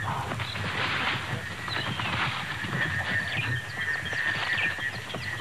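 Wild animal sounds: a few short warbling calls over a dense patter of clicks, with a steady high drone that sets in about three seconds in.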